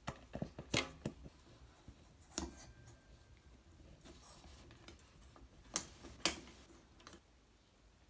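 Sparse sharp clicks and taps of ceiling fan canopy parts being fitted by hand: several small ones at first, then two louder clicks about half a second apart later on.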